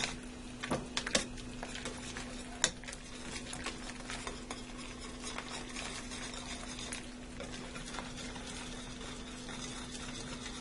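A spoon stirring a flour-and-water slurry into a simmering chicken pot pie filling in a large metal skillet, the thickening stage that turns the broth into gravy. A few sharp clinks of the spoon against the pan in the first few seconds, over a steady low hum.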